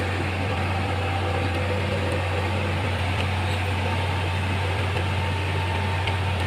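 Diesel generator set running at a steady speed: a constant low drone with no change in pitch or load.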